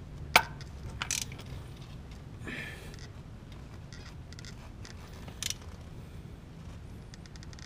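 Metal hand tools clicking and clanking on the engine as the crankshaft is turned slowly by hand with a wrench to line up the timing marks. There are a few sharp clicks, the loudest about half a second in, with faint quick ticking later, over a steady low hum.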